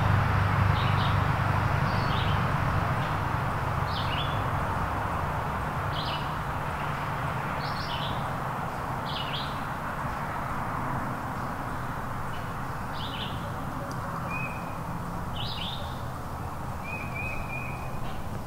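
Small birds chirping in the woods: short, high, sliding notes repeated every second or so over a steady woodland hiss.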